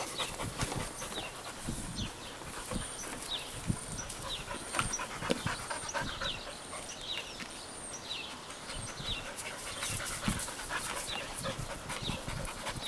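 Dog panting from running after a frisbee, with short high chirps repeating about once a second behind it.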